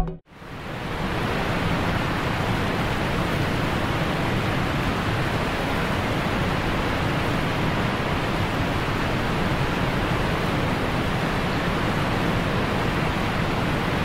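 Steady roar of rushing water from a waterfall or mountain river, an even noise that swells in during the first second and then holds level.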